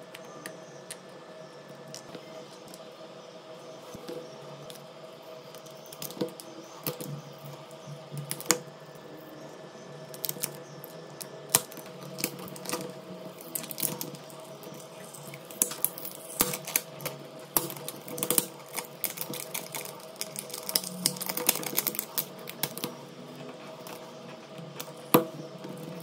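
Small irregular clicks and taps of a plastic pry tool and fingertips on a disassembled Vivo V20's frame, with plastic film crinkling as it is peeled off. The clicks are sparse at first, come thick and fast in the second half, and there is one sharp louder click near the end.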